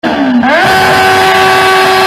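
Motorcycle engine revved hard: its pitch dips and then climbs in the first half second, then holds steady at high revs.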